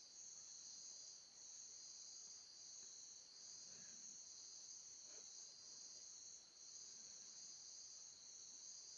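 Near silence with a faint, steady high-pitched hum.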